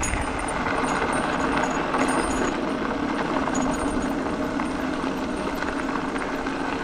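Mountain bike rolling along a gravel dirt road: steady tyre noise on the loose gravel, with faint ticks and rattles from the bike.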